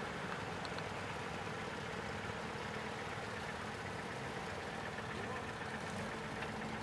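Several classic cars' engines idling and running slowly as they creep forward in a queue, a steady mixed engine noise.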